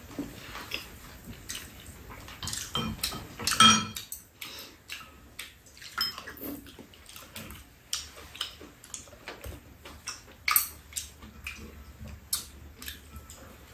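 Spoons and chopsticks clicking and scraping against ceramic bowls during a meal: irregular light clinks, the loudest at about four and ten and a half seconds in.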